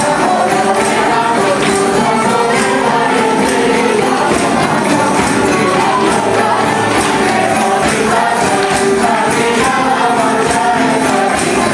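A rondalla playing a song: strummed Spanish guitars and other plucked strings with a tambourine jingling in rhythm, and a group of men singing along.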